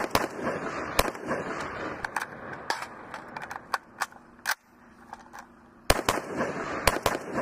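QBZ-191 rifle in 5.8×42 mm fired in single shots at uneven spacing, about a dozen in all, with a lull of about a second and a half past the middle and a quick string of shots near the end.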